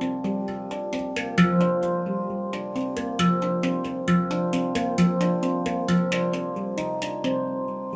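Instrumental music: a quick, even run of short notes over held chords.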